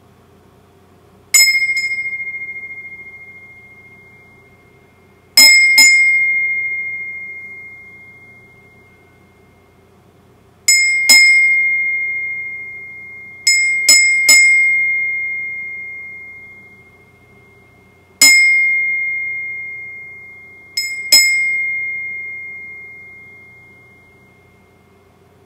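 A high-pitched bell struck about eleven times, singly and in quick pairs or threes, each strike ringing out as one clear tone that fades slowly over several seconds.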